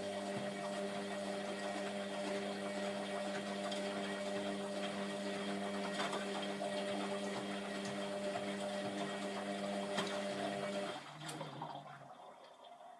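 Hotpoint WMF720P washing machine running: a steady hum over rushing, sloshing water that stops about eleven seconds in. A lower hum follows for about a second and then dies away.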